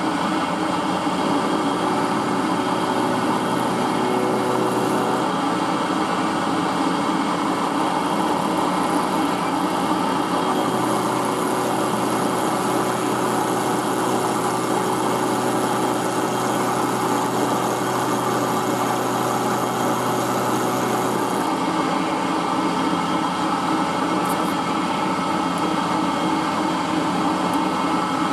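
Milling machine running, its end mill cutting a shallow V groove into a square steel block at a steady, even level. A steady high whine with a low hum comes in twice, briefly about a second in and again from about eleven to twenty-one seconds, then drops away.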